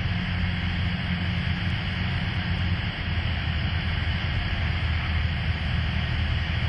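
Cessna Skyhawk light aircraft in the cockpit on final approach: steady engine drone with a constant hiss. The low engine hum eases about three seconds in.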